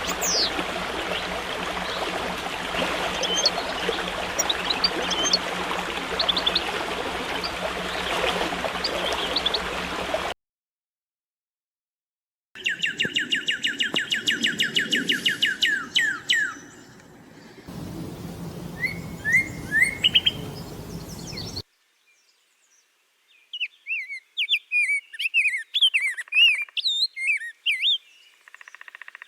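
Small birds chirping and singing, with fast repeated trills and short whistled notes. For the first ten seconds they sing over a steady rushing noise, then the sound stops dead and returns as separate stretches of clean birdsong with brief silent gaps between them.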